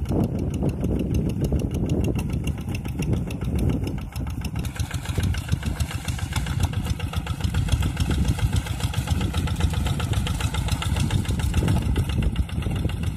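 Quick G1000 hand tractor's single-cylinder diesel engine chugging steadily with rapid, even firing pulses while labouring to pull through deep flooded paddy mud. From about four seconds in it sounds sharper.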